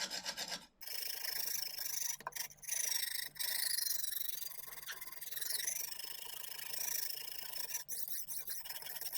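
Coarse 70-grit stone of a Lansky guided sharpening system, lightly oiled, rasping back and forth along a kitchen knife's edge in steady strokes, with a few short breaks. The edge is being reprofiled at 25 degrees, ground until a burr forms.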